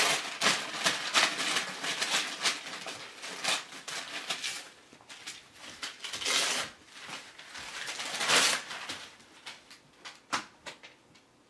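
Wrapping paper crinkling and tearing as a puppy noses and pulls at it with her mouth, in uneven bursts of rustling that die away near the end.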